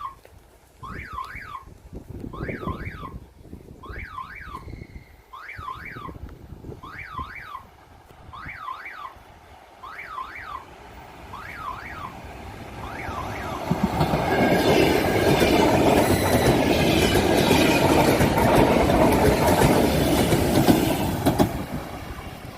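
Russian-made electronic level-crossing signal warbling up and down about once a second, like a car alarm. From about 13 seconds in, a 1964 Soviet-built electric passenger train passes close by with loud rushing rail noise that drowns the signal, then drops off shortly before the end.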